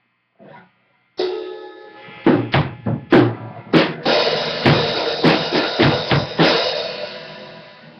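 A drum kit being played: a cymbal crash about a second in, then a run of loud bass drum, snare and tom hits under ringing cymbals, dying away near the end.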